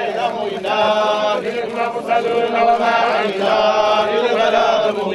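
A group of men chanting together in unison: a sung Islamic funeral chant, with several voices holding and gliding between notes.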